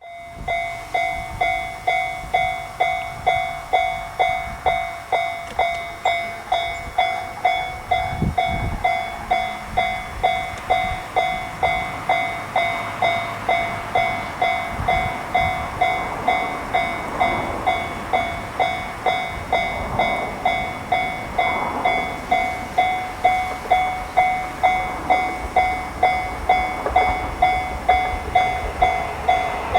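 Japanese railroad crossing warning bell ringing its repeated 'kan-kan', about two strikes a second. A rumbling noise builds up under it in the second half.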